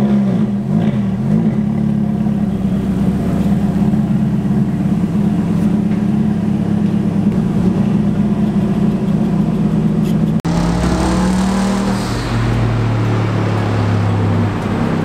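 Car engine running steadily, with a few quick revs in the first second or so. About ten seconds in, the sound cuts to a different engine idling at a lower pitch.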